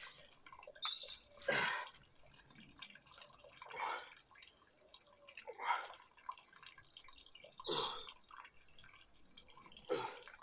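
A man breathing out hard in short puffs, about one every two seconds, as he does single-arm dumbbell curls.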